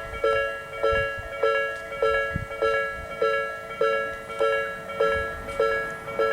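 Japanese level-crossing warning alarm sounding its slow 'Nikko Line type' tone: an electronic bell-like ding repeated in an even beat, a little under two dings a second, each one fading before the next.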